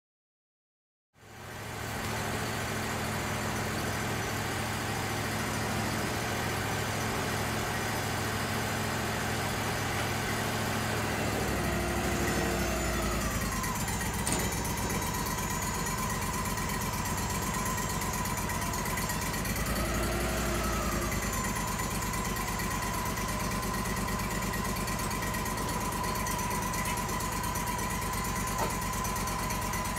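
Engine of a Wood-Mizer portable sawmill running steadily. About halfway through, a whine rises and falls twice and then holds at a steady pitch as the hydraulics lift a log onto the mill bed.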